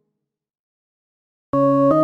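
Dead silence for about a second and a half, then a bright electronic keyboard chord starts abruptly and shifts to new notes just before the end: the opening of a flashback sound effect.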